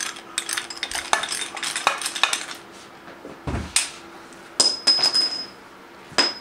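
Steel hand tools clicking and clattering against a cast engine manifold. A dull thud follows, then several sharp metal-on-metal knocks, each with a high ringing tone: a socket being knocked to free a bolt stuck inside it.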